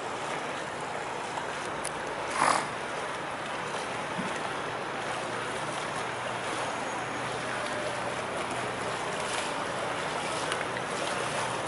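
Small open motorboat's outboard motor running steadily as it comes across the water, a low hum under a steady outdoor noise. A brief loud sound stands out about two and a half seconds in.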